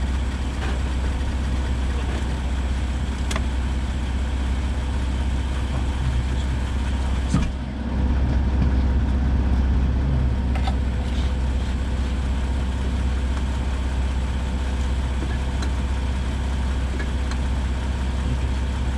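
Steady low engine drone. About seven and a half seconds in there is a sharp knock, after which the drone dips briefly and comes back a little louder.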